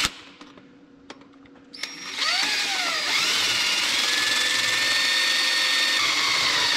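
Handheld power drill spinning up about two seconds in, after a few small clicks, then running steadily as it bores a hole into the metal case of an old tractor brake-piston seal so a screw can be threaded in to pull the seal. Its pitch rises as it spins up, then holds steady.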